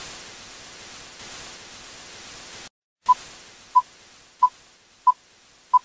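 Static hiss that cuts out for a moment about two and a half seconds in, then returns and fades under five short, identical beeps, one every two-thirds of a second or so. It is an electronic title-sequence sound effect.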